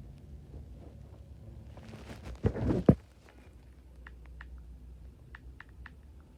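A short rustling burst ending in a sharp knock about two and a half seconds in, then a scatter of light clicks.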